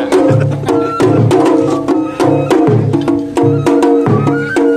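Festival float taiko drums beaten in a quick, steady rhythm, sharp stick strokes over regular deep drum beats, with a held melody line that steps in pitch, as in Japanese matsuri-bayashi festival music.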